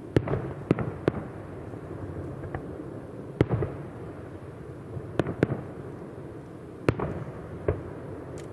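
Aerial firework shells bursting at a distance: about a dozen sharp bangs at irregular intervals, some in quick pairs, each trailing a short echo.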